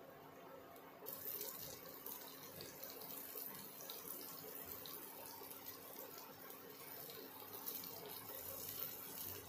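Masala-coated elephant foot yam slices sizzling faintly in shallow oil in a nonstick pan, a steady crackling hiss from gentle frying on low heat. It gets a little louder about a second in.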